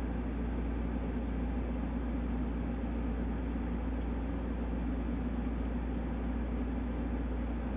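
A steady low hum and whir from a running appliance, unchanging throughout.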